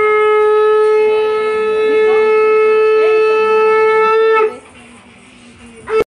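Conch shell (shankh) blown in one long, steady, loud note of about four and a half seconds that cuts off abruptly. A short blast follows right at the end.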